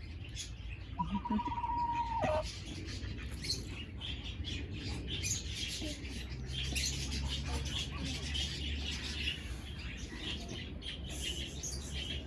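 A flock of budgerigars chattering: a dense, continuous twittering of many short chirps. About a second in, one longer held call drops in pitch at its end.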